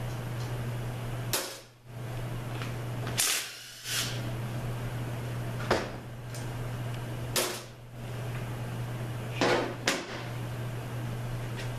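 A series of short, sharp knocks and clanks, about six of them spaced irregularly, from hands and tools working the aluminium bell housing off a Ford A4LD automatic transmission, over a steady low hum.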